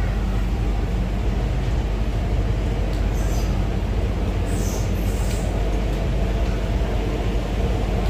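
Interior of a moving MTR Island Line Q-Train metro car: the steady running rumble of the train in the tunnel, with brief high-pitched squeaks about three and five seconds in.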